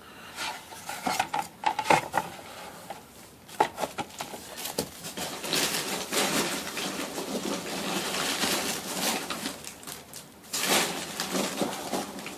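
Hard plastic and resin model-kit parts being handled, with scattered clicks and knocks, then a longer stretch of rustling and crinkling packaging from about five seconds in, and a short burst of rustling near the end.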